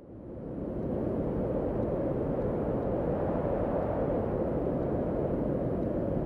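Steady, low outdoor background noise fades in over the first second and then holds even, with no distinct events in it.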